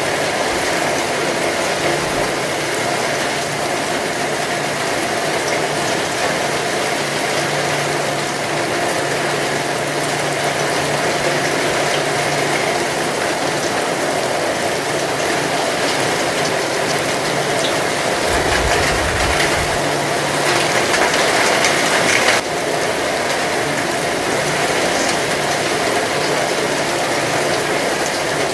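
Heavy rain falling steadily, a dense, even hiss of drops, with a brief low rumble about two-thirds of the way through.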